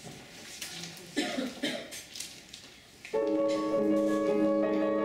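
A kanon-and-piano duo starts playing suddenly about three seconds in, with ringing chords that change every half second or so. Before that there are only a few faint shuffles and murmurs.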